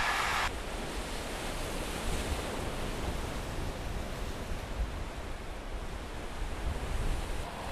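Small waves washing onto a pebble beach, a steady rush with a low, uneven wind rumble on the microphone. About half a second in, the noise of a passing train cuts off abruptly.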